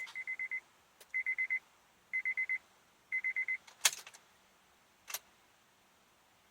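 2006 Honda Odyssey's dashboard warning chime beeping in quick groups of four, four groups about a second apart, followed by two sharp clicks as the van fails to start. The fault behind it is a battery terminal that has separated internally.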